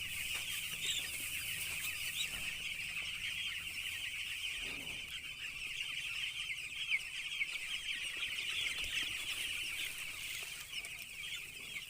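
A flock of eight-day-old chicks peeping together: a steady high chatter of many overlapping cheeps.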